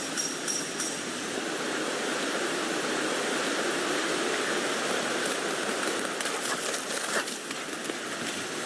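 Rain falling on a tent: a steady hiss of rain, with scattered sharper drop taps in the second half.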